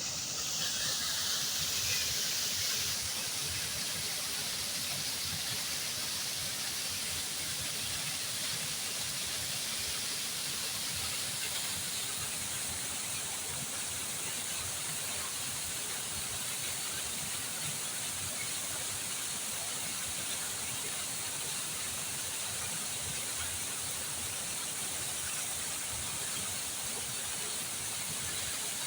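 Flowing water rushing in a steady, unbroken hiss, a little brighter for the first few seconds and then even.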